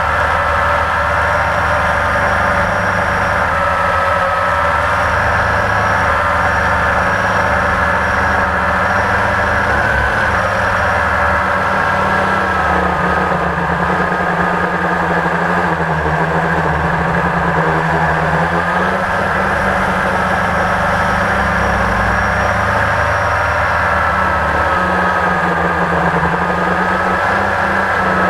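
Blade 350 QX quadcopter's brushless motors and propellers running in flight, heard close up from the camera on the airframe: a loud, steady whine whose pitch wavers slightly as the throttle changes.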